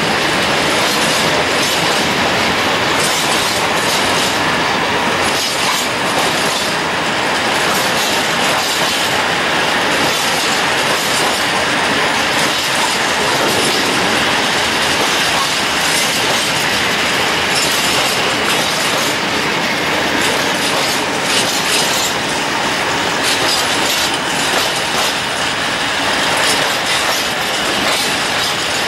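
Freight train of open coal wagons rolling past at close range: a steady, loud rumble of steel wheels on rails, with scattered clicks as the wheels pass over joints.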